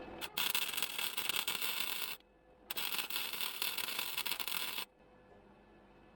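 Welder arc crackling in two bursts of about two seconds each, with a short pause between them, as patch metal is tacked into a floor pan.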